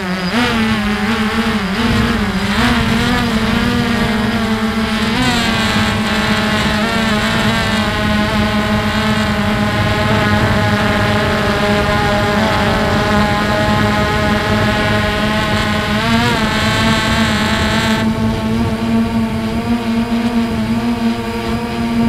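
Quadcopter drone's motors and propellers whining, heard through the drone's own microphone: a steady hum that wavers up and down in pitch as the drone manoeuvres, over a low rumble of wind.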